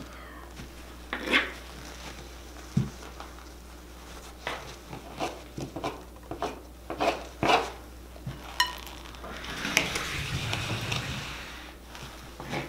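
Dishes and utensils clinking and knocking as they are gathered up to clear the table after a meal. One clink rings out about two-thirds of the way in, followed by a couple of seconds of rustling.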